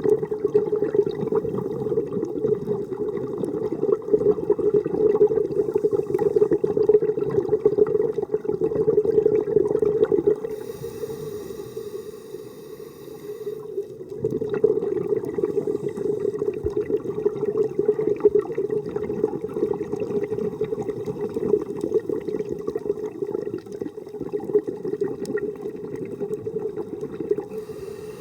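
Muffled water noise as heard underwater: a steady, dull churning with light crackle, easing off for a few seconds about ten seconds in, then resuming.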